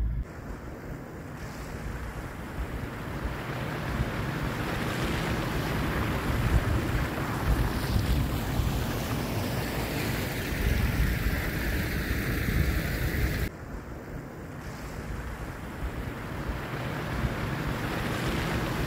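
Vehicle driving on a wet dirt track with heavy wind buffeting the microphone, a steady low rumble under a rushing hiss. The hiss swells in the middle and cuts off sharply about two-thirds of the way through.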